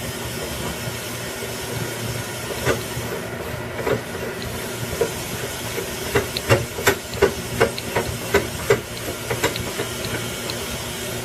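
Small push button on the LTX20 capacitance level transmitter's circuit board clicked repeatedly, a dozen or so short clicks that quicken to about three a second in the middle, over a steady hiss. The span UP button is being stepped to bring the current-loop output up to 20 mA.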